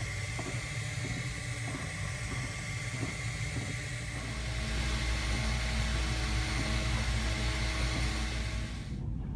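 FDM 3D printer at work: the print head's stepper motors whir in shifting pitched tones over the steady hiss of its cooling fan, with a few light ticks in the first few seconds. From about halfway the motor tones turn steadier and lower, and the hiss cuts off abruptly shortly before the end.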